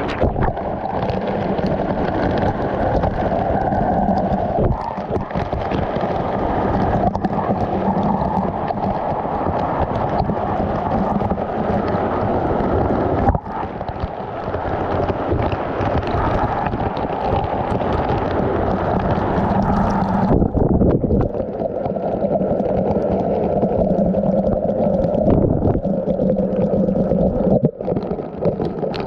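Steady rush of a mountain stream and waterfall. The hiss in the upper range drops away about two-thirds of the way through, leaving a deeper rush.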